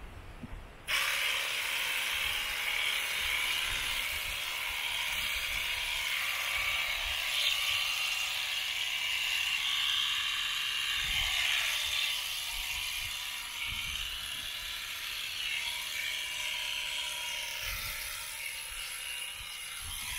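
Electric shearing handpiece switched on about a second in and running steadily, its cutter buzzing back and forth across the comb as it shears alpaca fleece.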